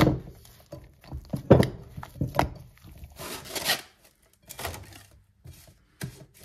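A ball of yeast dough thumped into an oiled glass bowl and turned by hand, with several soft knocks against the glass. About three seconds in, plastic cling film rustles and crinkles as it is pulled off its roll and stretched over the bowl.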